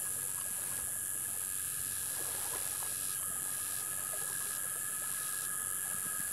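Faint small clicks and rustles of a hook being worked out of a fish's mouth by hand, over a steady high hiss.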